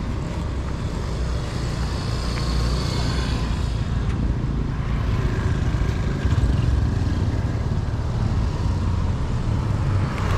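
Street traffic: vehicle engines running close by, getting louder about six seconds in.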